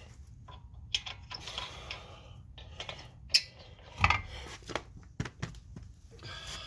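Metal parts and tools clinking and knocking as they are handled, a scatter of sharp clinks with two louder knocks around the middle, between stretches of rustling.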